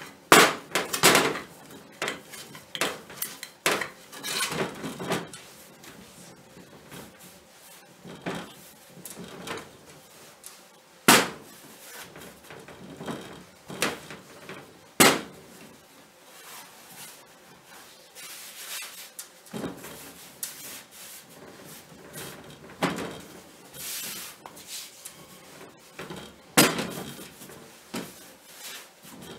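Intermittent knocks, taps and handling noises as cold mashed potato is lifted off an enamel plate and patted out on a floured work surface, with a few sharper knocks spread through.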